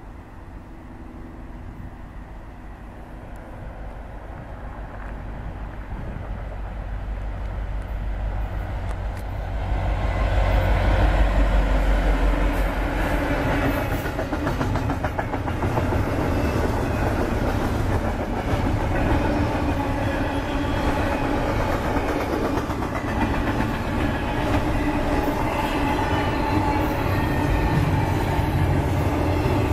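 Union Pacific freight train led by two EMD SD70M diesel-electric locomotives approaching and passing close by. The deep engine rumble builds to its loudest about ten seconds in, then gives way to the steady rattle and wheel clatter of double-stack container cars and autorack cars rolling past.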